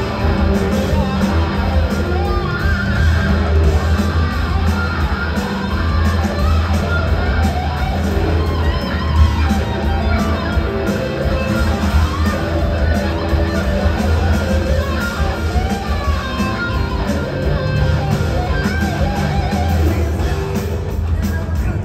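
Live rock and roll band playing: several electric guitars over drums and bass guitar, going steadily without a break.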